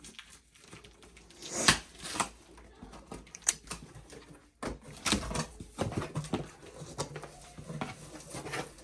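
A cardboard shipping box being handled and opened: scattered taps, knocks and rustles of cardboard and packing, the sharpest knock about a second and a half in.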